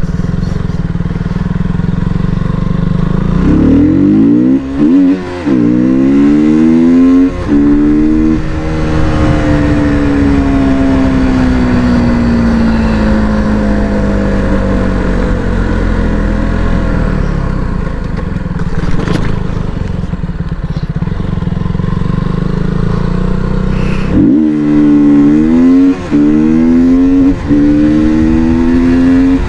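KTM single-cylinder motorcycle, with a cap removed to change its exhaust note, accelerating hard through the gears with a brief dip in the note at each shift. It then holds a long note that falls slowly as the bike slows, and near the end it accelerates through the gears again.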